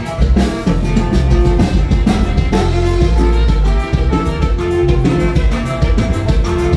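Norteño band with saxophone playing a huapango live: melody lines over bass and a steady drum beat.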